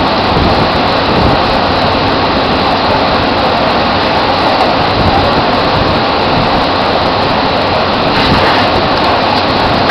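Loud, steady machinery din on a drilling rig floor while pipe is tripped out of the hole, with no single knock or clank standing out.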